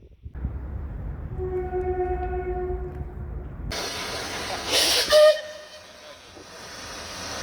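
Railway warning sounds in two short recordings. First, a train horn holds one steady note for about a second and a half over a low engine rumble. Then, after a cut, comes a brief, louder blast with a hissing rush, ending in a higher note.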